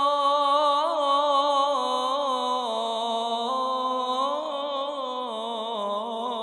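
A single man's voice singing a long, ornamented melismatic line of an Arabic sholawat, unaccompanied, its pitch wavering and stepping slowly downward.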